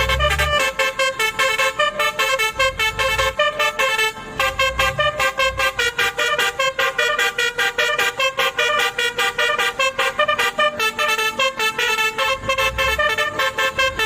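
Basuri V3 "telolet" musical bus horn with top-mounted trumpets playing a tune as a fast run of short, staccato horn notes at changing pitches, several a second.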